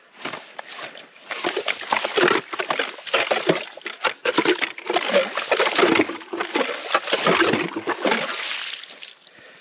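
Hand ice auger being pulled up and pushed back down in a freshly drilled hole through river ice, sloshing and crunching through water and ice slush in a run of uneven strokes.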